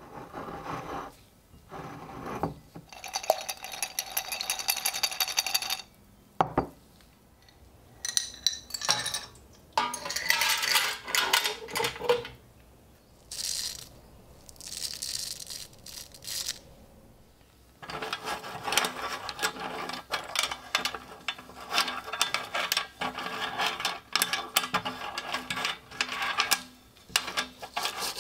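Old coins clinking and sliding against each other and against metal in several short bursts as they are handled and tipped out. Then, for the last ten seconds, a stiff plastic-bristle brush scrubs wet coins in a stainless steel sink in quick repeated strokes.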